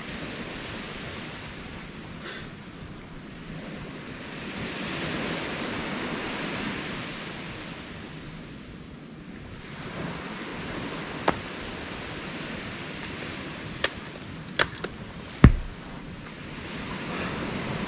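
Steady hiss of sea surf and wind. Near the end come a few sharp cracks, then one heavy thud as a coconut drops from the palm and lands on the sand.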